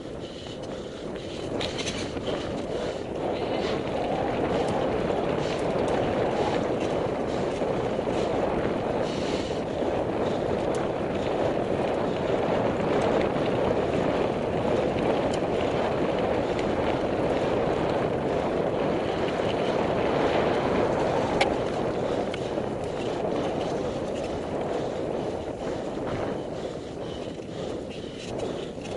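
Mountain bike descending a dirt trail: a steady rushing noise of rolling tyres, growing louder over the first few seconds, with scattered clicks and knocks from the bike.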